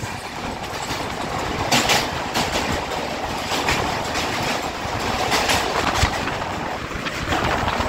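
Train running at speed on rails: a steady rumble with several irregular sharp clacks of wheels over rail joints.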